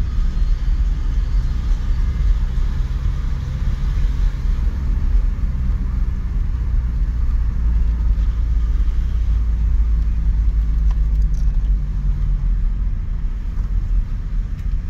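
Taxi's engine and road noise heard from inside the cabin while driving: a steady low rumble.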